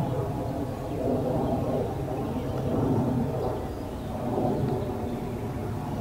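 Outdoor background noise: a steady low rumble that swells and fades slowly, with no distinct hoofbeats or splashes standing out.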